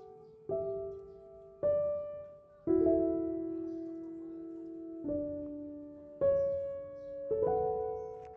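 Background piano music: slow single notes and chords struck one at a time, each left to ring and fade, six in all.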